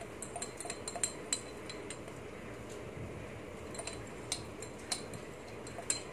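Light clinks and taps of a metal spoon against a kitchen container, in two scattered clusters, as tablespoons of salt are measured out.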